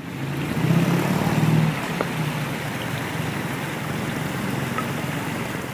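Water spilling over stacked stones into a pool in a small landscaped stream and waterfall, a steady rushing splash. A low rumble sits under it, loudest for about the first two seconds.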